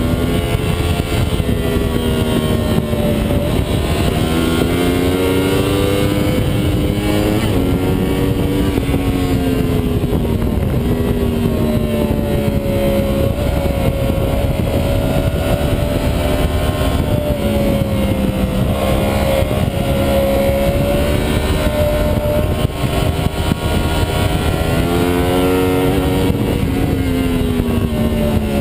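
2009 Yamaha R1 sportbike's inline-four engine on track, its note climbing under hard acceleration through the gears and dropping off for the corners several times over, with heavy wind rush over the onboard microphone.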